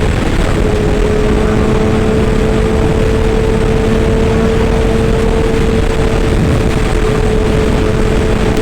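Excavator running steadily, with a constant whine over the engine noise.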